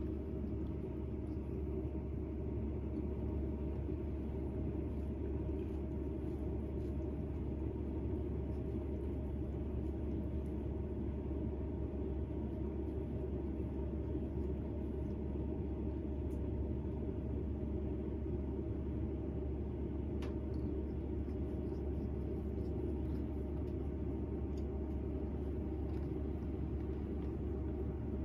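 Steady low background rumble at an even level, with a couple of faint ticks partway through.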